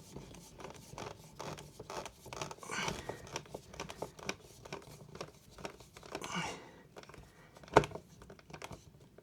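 Small clicks, scrapes and rustles of a plastic wall socket faceplate being lined up and screwed down, with one sharper click about three-quarters of the way through.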